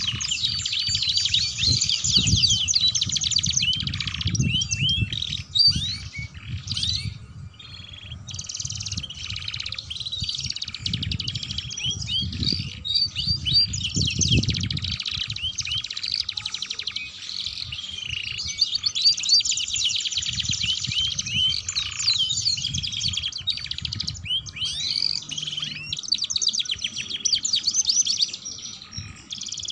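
Domestic canaries singing on and on: long, fast rolling trills and chattering warbles, thinning briefly about six to eight seconds in and again near the end. A low rumbling noise comes and goes underneath.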